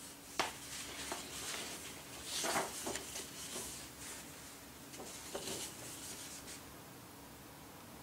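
Sheets of paper rustling as they are handled and held up, in a few short bursts, with a sharp tap about half a second in.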